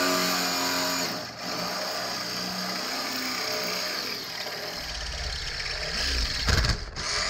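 Power drill boring out a bolt hole in a metal bracket, drilled dry without cutting fluid. The motor whine is steady with a brief dip about a second in. A lower grinding rumble joins in the second half, loudest near the end as the bit works through the metal.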